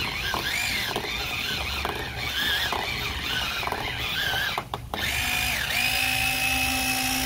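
Heavy-duty electric pencil sharpener grinding a pencil, its motor pitch wavering as the pencil is pushed in. The sound dips briefly a little under five seconds in, then the motor runs at a steadier pitch near the end.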